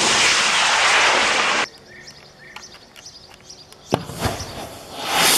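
Improvised rocket launching: a loud, even rushing hiss that cuts off suddenly about one and a half seconds in. Then faint bird chirps and a single sharp knock about four seconds in, before the hiss of the next launch rises near the end.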